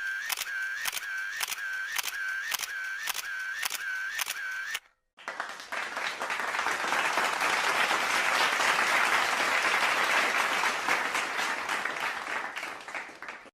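A run of sharp camera-shutter-like clicks, about two a second, for nearly five seconds. After a short gap comes a long stretch of applause-like noise that swells and then fades away.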